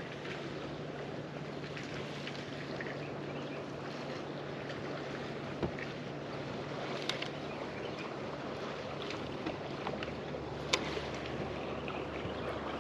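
Steady low hum of a bass boat's electric trolling motor over a soft wash of water and wind, with a few faint clicks.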